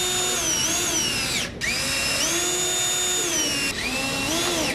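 Cordless drill driving screws through a pre-drilled stainless steel band, its motor whining in runs. It stops briefly about a second and a half in, runs again and winds down, then gives a few short spurts before cutting off at the end.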